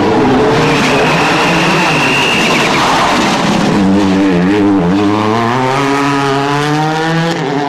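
Ford Focus WRC rally car's turbocharged four-cylinder engine running hard through a corner, with a high whine over the first couple of seconds. From about four seconds in it accelerates away, its pitch dipping twice at gear changes and then climbing steadily.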